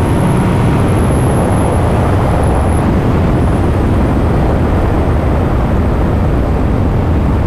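Steady wind rush over an action camera's microphone while riding a Yamaha MT-09 Tracer 900 at cruising speed. The bike's three-cylinder engine, fitted with an Akrapovic exhaust, runs evenly underneath. A faint high whine runs through the first few seconds.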